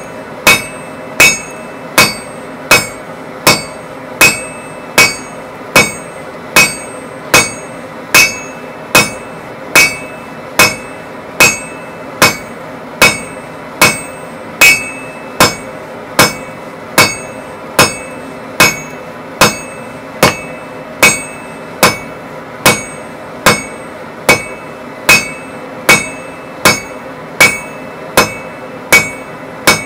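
Blacksmith's hand hammer striking a red-hot steel bar on the anvil horn, in an even rhythm of blows a little over one a second, with the anvil ringing between strikes.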